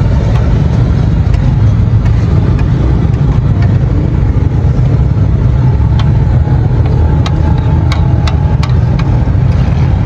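A steady low engine-like rumble, with a few sharp clicks from about six seconds in.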